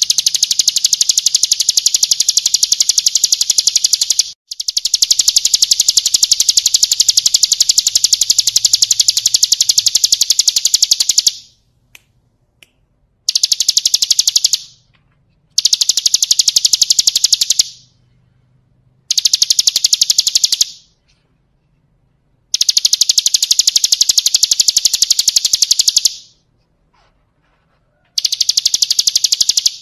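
Ciblek kristal, a prinia, singing a rapid, high-pitched rattling trill in long bursts, the longest about seven seconds, broken by short pauses.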